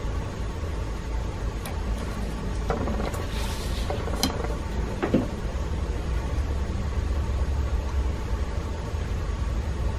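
Steady low background rumble, with a few light clicks and a short scraping rustle about three to five seconds in as a pattern board and a ruler are shifted and set down on the work table.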